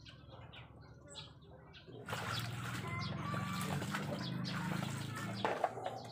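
Clothes being washed by hand in a basin of soapy water: water sloshing and splashing and wet cloth being rubbed. It is faint at first and much louder from about two seconds in.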